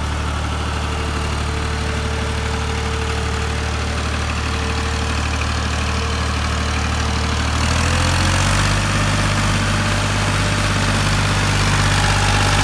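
Farm tractor's diesel engine running steadily under load as the tractor drives through deep paddy-field mud. About seven and a half seconds in, the engine note changes and gets a little louder.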